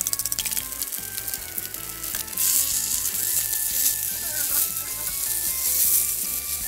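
Cooked rice frying in hot oil in a wok, sizzling steadily while it is stirred and turned with a wooden spatula; the sizzle grows louder about two seconds in. At the very start a fork beats eggs against a plastic bowl in quick clicks.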